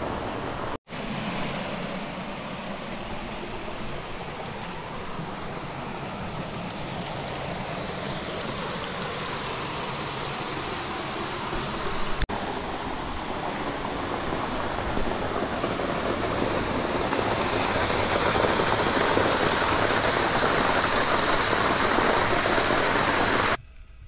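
Creek water rushing over sandstone ledges and down a waterfall, a steady rush that grows louder in the second half. It drops out briefly about a second in, clicks once near the middle, and cuts off sharply just before the end where clips are joined.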